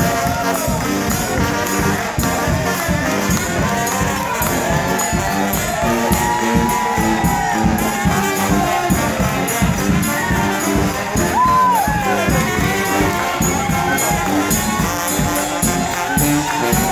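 Live brass-led New Orleans funk band playing: horns over a steady, driving drum beat.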